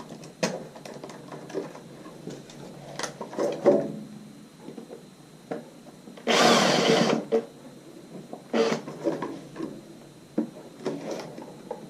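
Cordless drill driver driving a socket faceplate screw in a short run of about a second, amid scattered clicks and knocks of handling the socket and screws.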